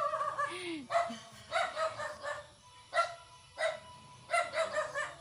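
A dog barking: a run of short, high barks, several in a row at about two a second.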